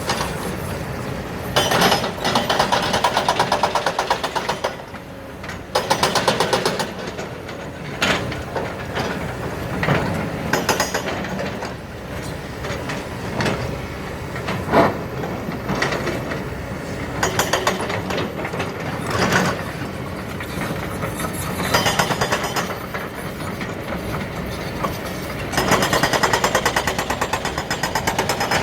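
Heavy diesel engine of quarry machinery running and surging louder for a few seconds at a time as it works under load. A few sharp knocks come through, the loudest about halfway through.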